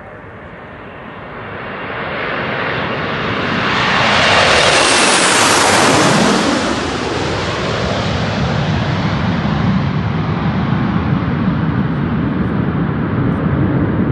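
A formation of Frecce Tricolori Aermacchi MB-339 jet trainers flying low overhead. The jet noise swells over the first few seconds and is loudest about four to six seconds in, with a falling pitch as the jets pass. A steady rumble follows.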